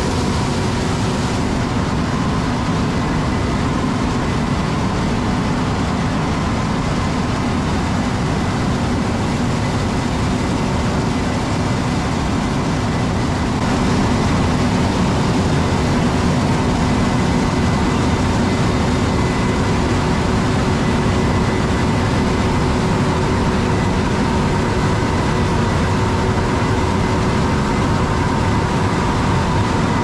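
Heavy harvest machinery running steadily: a corn combine and a tracked tractor under load, a constant engine drone with faint steady whining tones. It gets slightly louder about halfway through.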